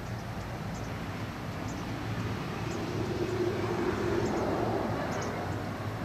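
Distant engine rumble, a low steady drone that swells in the middle and eases off again, like traffic or an aircraft passing far off. Faint, very short high bird chips sound now and then over it.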